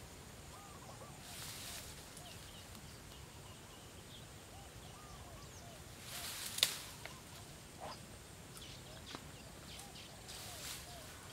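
Many short, faint rising-and-falling calls from marsh animals, scattered throughout. A few brief rustling swishes break in; the loudest, about six and a half seconds in, ends in a sharp click.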